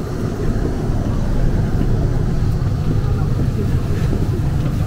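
Seoul Subway Line 2 train running: a steady, loud low rumble.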